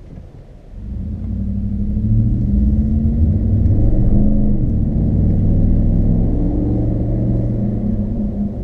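Ford F-150's 5.0 V8 through a Flowmaster 50 HD Delta Flow muffler, heard inside the cab: a low idle rumble, then about a second in the engine note rises and stays loud as the truck pulls away and accelerates.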